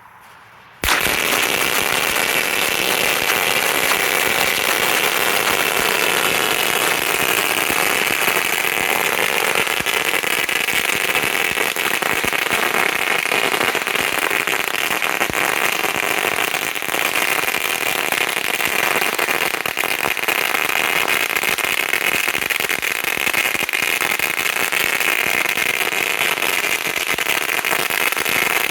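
A 4,000-count strip of Winda flash firecrackers going off: a continuous, very loud rapid-fire crackle of bangs that starts suddenly about a second in and keeps up at an even level without a break.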